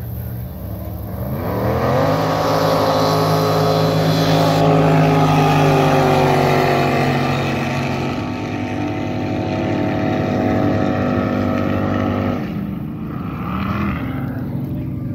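Racing jet boat engines accelerating hard, rising in pitch about a second in and then holding steady at high revs; the sound cuts off suddenly about twelve seconds in.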